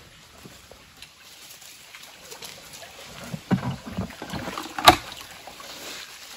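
Plastic bucket being dipped into a shallow spring pool and filled, with water sloshing and gurgling into it from about three and a half seconds in. A single sharp knock comes near five seconds in.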